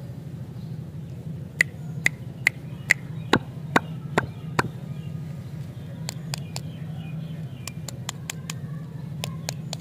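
Hands tapping and handling wrapped stick lollipops: a run of eight sharp taps about two a second, then lighter, irregular clicks and wrapper sounds as one lollipop is picked up. A steady low hum runs underneath.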